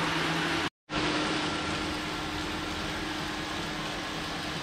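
Bicycle tyres spinning on Elite Arion Mag parabolic roller drums with a steady whir and hum as the rider pedals. The sound cuts out for a moment about three quarters of a second in, then resumes steadily at a slightly different pitch.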